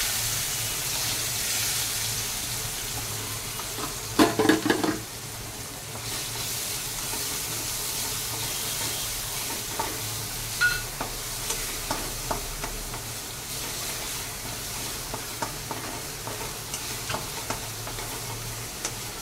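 Chopped onions sizzling in hot oil in a kadai, the sizzle loudest as they go in and settling over the first few seconds, while a spatula stirs and scrapes against the pan. A burst of louder knocks comes about four seconds in.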